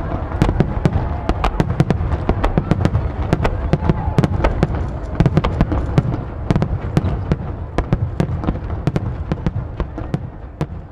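Fireworks display: a rapid barrage of aerial shells bursting, many bangs a second over a continuous low rumble and crackle, thinning out and getting quieter near the end.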